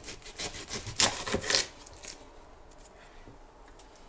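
Fillet knife sawing crosswise through a pike fillet with the scales left on the skin, the blade scraping on a wooden cutting board: a few short rasping strokes in the first two seconds, loudest about a second in, then quieter.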